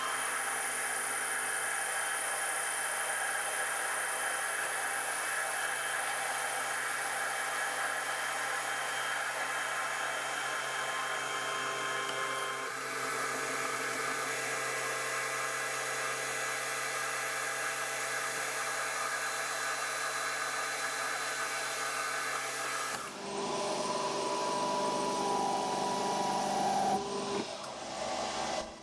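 Metal lathe running with a carbide-insert tool facing the end of a threaded bolt blank to take off about 3 mm. A steady whine with several fixed tones, which changes in tone about 12 seconds in and again about 23 seconds in.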